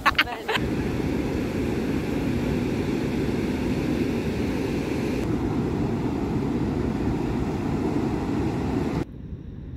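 Ocean surf breaking on a beach, with wind rumbling on the microphone. The sound is a steady, rough rush that shifts a little past halfway and drops suddenly to a quieter wash near the end.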